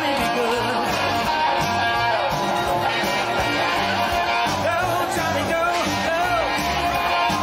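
A song playing: a singing voice over guitar with a steady beat of bass notes, rock in style.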